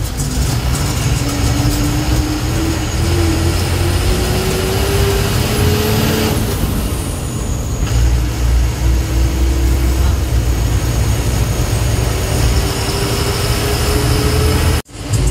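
Ashok Leyland diesel bus engine pulling under load, its note climbing steadily, falling away about six seconds in as it changes gear, then climbing again. The sound cuts out abruptly for a moment near the end.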